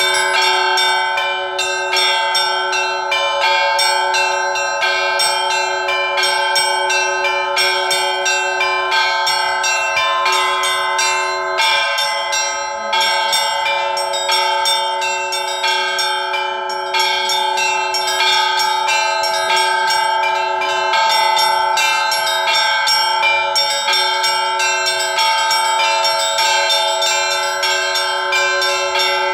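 Russian Orthodox church bell ringing (zvon) on a set of bells: rapid, unbroken strikes of the small bells over the steady ringing of several larger bells.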